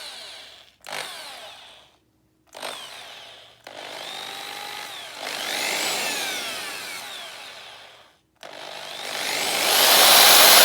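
Corded Black and Decker hammer drill with a bit in its keyless chuck, triggered in three short bursts that spin the motor up and let it wind down. Then come a longer run and, after a brief stop, a run that builds to its loudest near the end.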